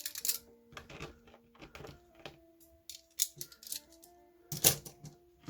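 Metal handcuffs clicking and rattling as they are handled and fitted into a hard handcuff cover box, in short irregular clicks with the loudest clatter about four and a half seconds in. Faint background music with held notes underneath.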